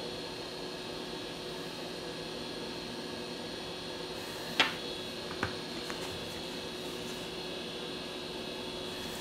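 Steady electrical hum and fan-like hiss of workshop equipment, with a few fixed tones. A sharp click comes about halfway through, followed by two fainter ticks.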